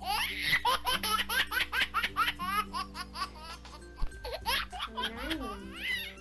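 A fast run of high-pitched giggling laughter, several short rising 'ha' sounds a second, over steady background music.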